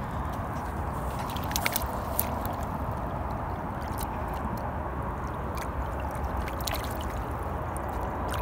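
Water sloshing and gurgling around a landing net lowered into shallow river water to release a batch of roach and dace, with scattered small splashes and drips.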